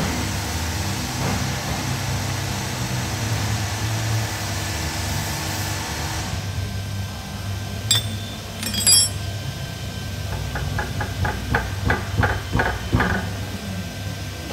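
A couple of sharp metal clinks about eight seconds in, then a rapid run of rubber-mallet blows on the steel gland end of a Dieci boom lift hydraulic cylinder, about four to five a second and getting stronger, over a steady low hum.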